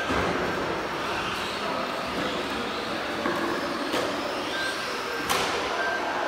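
1:10 scale Tamiya TT01E electric RC trucks running: a steady whir of small electric motors, gears and tyres, with rising motor whines around four seconds in. Several sharp knocks cut through, the loudest about five seconds in.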